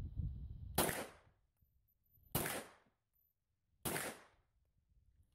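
Three pistol shots from a 9mm Glock 17 with a drilled, hand-serrated slide, each a sharp crack with a short tail, about a second and a half apart.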